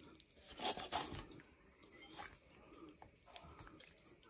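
Boning knife drawn along the bone of a raw chicken to free the breast, heard as a few faint, short scrapes with wet flesh sounds.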